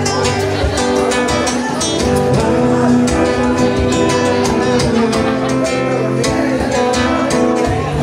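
Acoustic guitar played live, strummed chords in a steady rhythm.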